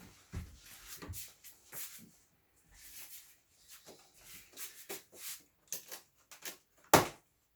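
Cardboard box and packaging being handled and slid about: a run of short scraping and rustling noises, with one sharp knock about seven seconds in.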